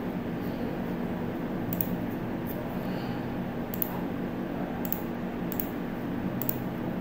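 Steady low electrical hum of the recording setup, with about six faint, sharp computer mouse clicks at uneven intervals as items are clicked on screen.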